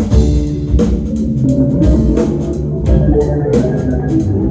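Live rock band playing an instrumental passage with no vocals: a steady drum beat over bass and sustained keyboard and guitar chords.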